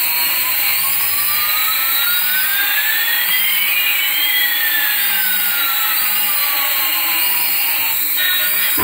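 Toy remote-control helicopter's small electric motors and rotors whirring, with two whining tones, one rising and one falling, that cross about halfway through.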